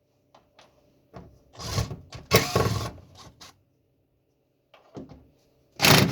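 Hand tools being handled during work on the fuel pump cover: a few light clicks, then two longer scraping, rubbing bursts, one about two seconds in and one near the end.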